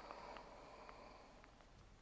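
Near silence: faint background hiss with a few faint short ticks in the first second or so.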